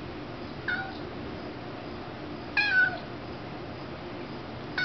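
Kitten meowing up at small bugs flying near the ceiling: a short meow about a second in, a louder, longer one in the middle, and another starting right at the end, each falling in pitch.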